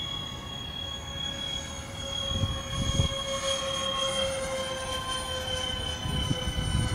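Airbus A380 jet engines whining as the airliner flies past, several steady high tones slowly falling in pitch over a low rumble that grows louder about halfway through.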